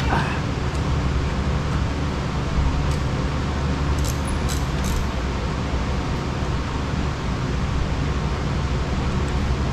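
A steady mechanical hum and hiss, with a few short clicks about four to five seconds in.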